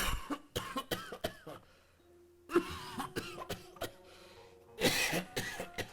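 Acted coughing: a cluster of rough coughs in the first second and a half, then another heavy cough about five seconds in.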